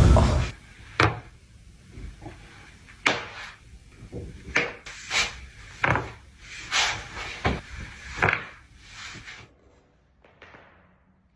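Back cracking: a series of about eight sharp pops and cracks from a person's spine, with fainter clicks between them. A loud noise cuts off about half a second in.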